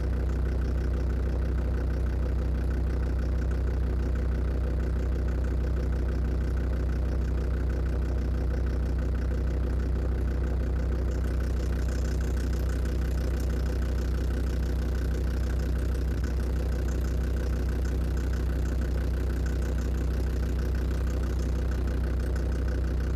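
Land Rover Defender TD5's five-cylinder turbodiesel idling steadily, heard through its air-intake snorkel.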